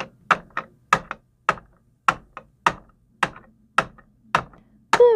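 Littlest Pet Shop plastic dog figurine tapped again and again on a wooden ledge as it is hopped along, a steady run of sharp taps about two a second, some followed by a lighter one.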